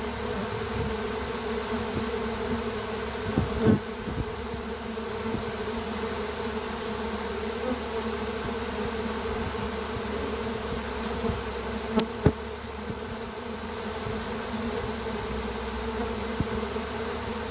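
Honey bee swarm in progress: thousands of bees pouring out of the hive and flying all around, making a steady, dense buzzing hum. A few short sharp taps break through, one about three and a half seconds in and two close together near the middle.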